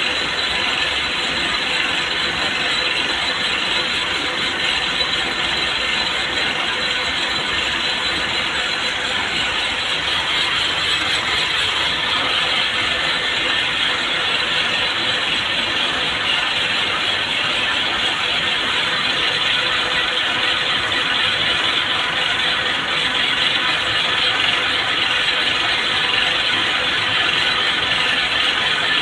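Many cord-making machines running together, their spinning bobbins and moving parts making a loud, steady, dense mechanical clatter.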